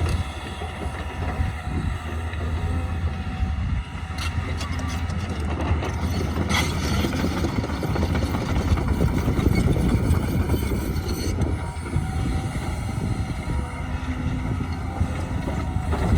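Heavy construction machinery engine running steadily, with a couple of short knocks about four and six and a half seconds in.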